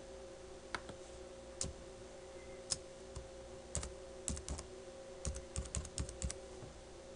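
Typing on a computer keyboard: a few separate key clicks, then a quick run of keystrokes between about four and six seconds in.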